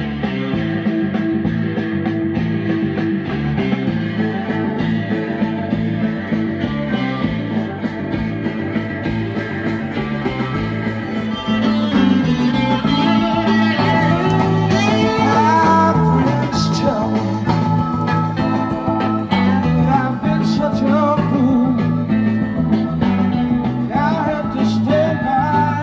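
Rock song with guitar played from a vinyl record through a Pioneer SX990 preamp and a restored AMI-Rowe R-2620A tube amplifier, heard from its speakers; the music gets louder and singing comes in about twelve seconds in. The owner hears a hole in the upper mids, where some vocals drop away, and blames the Pioneer preamp rather than the amp.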